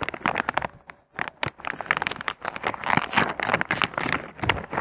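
A pouch of dry cat treats being torn open and handled, its packaging crinkling, with many small irregular crackles and clicks as the biscuits are shaken out.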